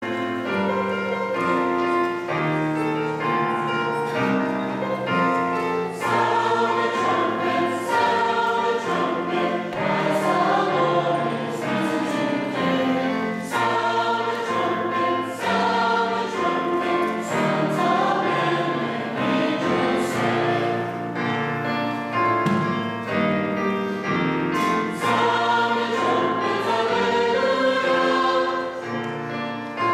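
Choir singing, many voices moving together in full chords without a break.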